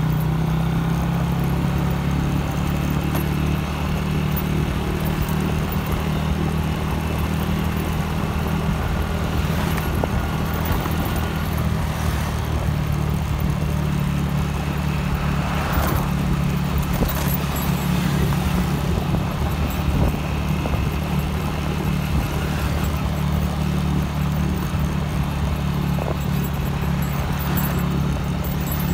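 Vehicle engine running steadily at cruising speed, a low drone with road and wind noise over it.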